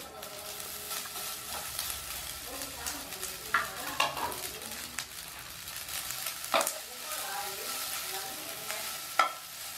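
Yakisoba noodles sizzling in a hot non-stick frying pan as they are tipped in and stirred with a spatula. Several sharp clacks of utensils against the pan stand out above the steady frying hiss.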